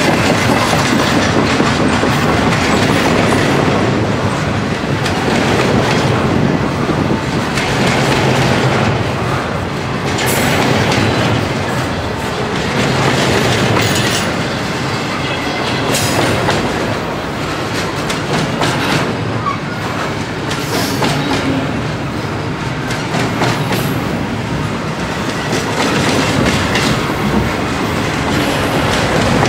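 Double-stack intermodal container train rolling past at speed: steel wheels on the rails and the loaded well cars give a loud, continuous rumble broken by steady clatter from the wheels crossing rail joints.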